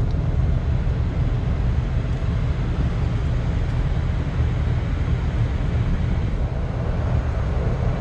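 Steady low rumble of outdoor background noise with no distinct event.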